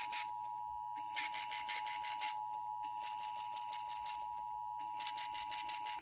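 Emergency Alert System two-tone attention signal, a steady dual tone, carrying on faintly beneath four rasping, rattling bursts, each about a second long with short gaps between them.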